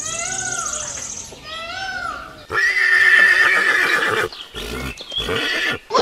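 Animal calls: two short cries that rise and fall in pitch, over a faint high buzz, then a loud, drawn-out call of nearly two seconds starting about halfway through, followed by a few shorter, broken sounds.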